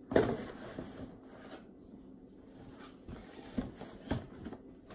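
Faint rustling with a few soft knocks, the sound of objects being handled; the loudest knock comes right at the end.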